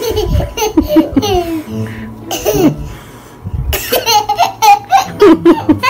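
Young child laughing in bursts, with a short pause about halfway through, then a quick run of short laughs near the end.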